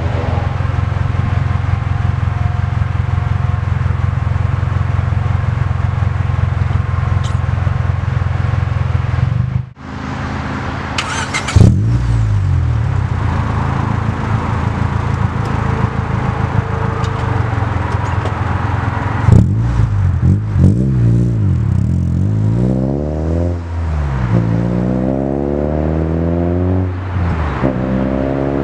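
Honda D16Y8 1.6-litre SOHC VTEC four-cylinder running through an Invidia N1 catback exhaust. It first idles steadily, then, after a brief break, pulls away under light acceleration, its revs climbing and dropping again several times as it shifts up through the gears. Two sharp knocks stand out as the loudest sounds, a little over a third of the way in and again about two-thirds through.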